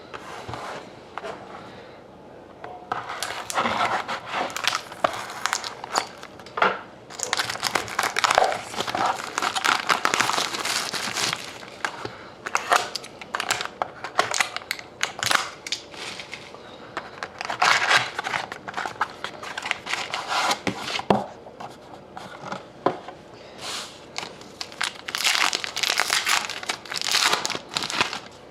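Crinkling and tearing of hockey card pack wrappers as packs are opened and the cards handled, in uneven spells of rustling.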